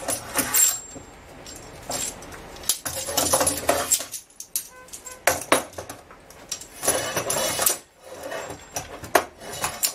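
Homemade slide hammer (steel threaded rod, hammer head and Vise-Grip locking pliers) clinking and clanking as it is handled and shifted on a wooden workbench: a series of sharp, irregular metal-on-metal and metal-on-wood knocks.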